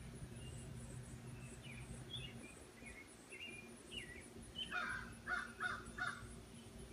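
Crows cawing, four harsh caws in quick succession about two-thirds of the way through, over scattered chirps of small songbirds and a faint steady high insect trill.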